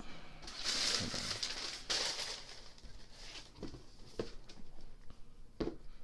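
Crinkling of shoe-box tissue paper for about two seconds, followed by a few light knocks as the sneakers and box are handled.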